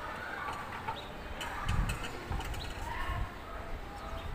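Long aluminium window-frame sections shifted on a worktable: light metal scraping and clicking, with a few low thumps about two to three seconds in.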